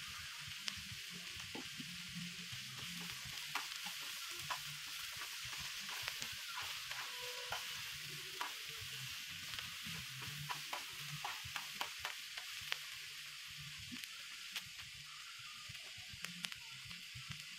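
Sliced red onions sizzling in oil on a hot griddle pan, with the clicks and scrapes of a utensil stirring them, most of them between about four and thirteen seconds in.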